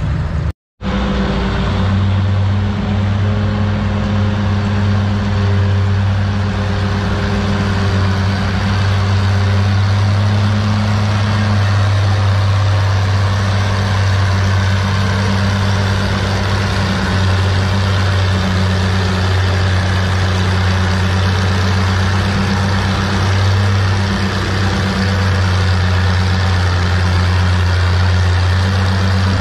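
Engine of a vintage Oliver row-crop tractor running steadily under load as it drags a weight-transfer pulling sled at a slow crawl. A deep, even hum cuts out for an instant just under a second in.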